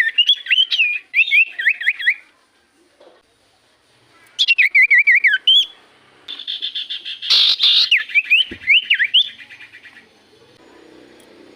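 Iora (cipoh) singing in three loud bouts of quick, warbling whistled phrases that swoop up and down, the last ending a little after the middle, with a faint background hum near the end.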